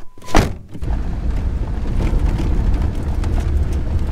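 A car door pulled shut with a single thunk, then the car driving on a dirt road heard from inside the cabin: a steady low rumble of engine and tyres.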